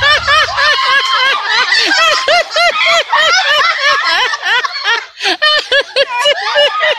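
High-pitched laughter from several people: a fast, unbroken string of 'ha' sounds, about five a second, that falters briefly about five seconds in and then picks up again.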